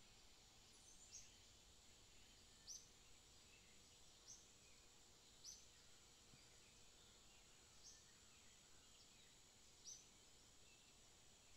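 Near silence: a faint steady hiss with a short, high chirp repeating about every one and a half seconds.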